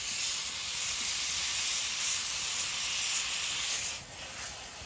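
A frying pan over a campfire sizzling steadily as thick coconut milk is spooned onto frying tomatoes and chili. The sizzle turns quieter about four seconds in.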